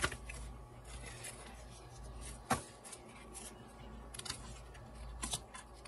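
Clear plastic page protector crinkling and rustling as it is handled, with light scattered clicks and one sharper click about two and a half seconds in.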